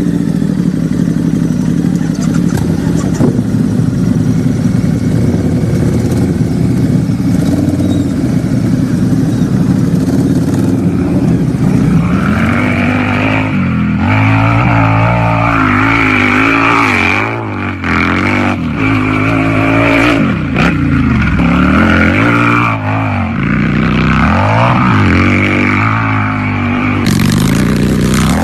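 Motorcycle engine idling steadily, then revved again and again from about halfway through, its pitch rising and falling with each twist of the throttle.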